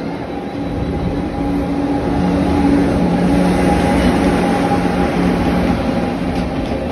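Indian Railways express train passing close by: its electric locomotive draws level with a steady hum over the rumble of wheels on rail, loudest a few seconds in, before the passenger coaches roll past.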